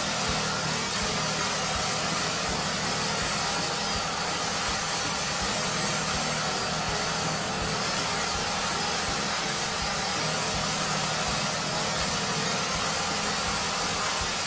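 A small motor running steadily, heard as an even hiss with a low hum underneath.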